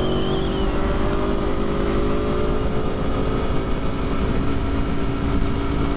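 Motorcycle engine pulling at a steady engine speed while riding, heard over heavy wind rumble on the rider's microphone.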